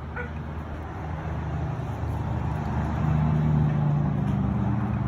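Steady low hum of a running vehicle, growing louder about three seconds in.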